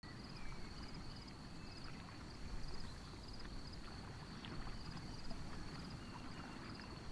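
Faint outdoor ambience: a low, even rumble with a high, rapid chirping that repeats about twice a second in bouts, and a few faint whistles.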